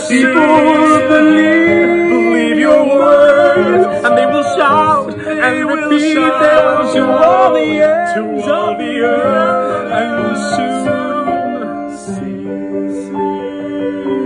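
Men's voices singing a slow anthem-like song in English in harmony, the lead line with vibrato, closing on a long held note near the end.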